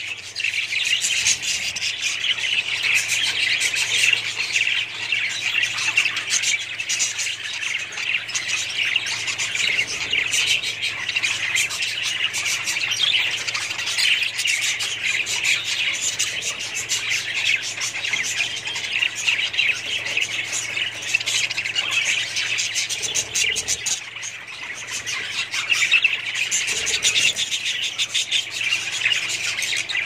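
A flock of caged budgerigars chattering and chirping without pause, many birds at once in a dense, continuous warble.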